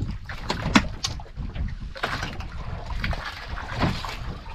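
Sea water sloshing and slapping against an outrigger boat's hull, over a low wind rumble, with a few sharp knocks in the first second or so.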